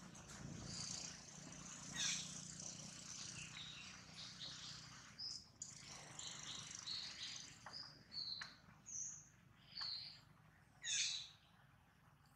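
Birds chirping and calling, with short high calls coming about once a second in the second half and a louder downward-sweeping call near the end.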